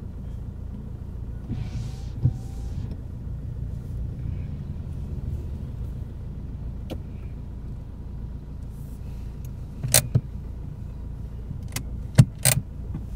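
Steady low engine and road rumble heard from inside a moving vehicle, with two short hisses about two seconds in and a few sharp clicks and knocks near the end, the loudest about twelve seconds in.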